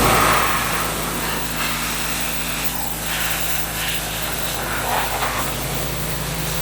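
Engine-driven pressure washer running steadily, with the hiss of its water jet spraying and swelling and easing as the spray moves.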